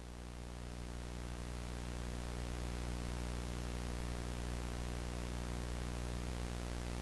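Steady low electrical hum under a hiss of static, with no music or voice, growing slightly louder over the first couple of seconds and then holding level.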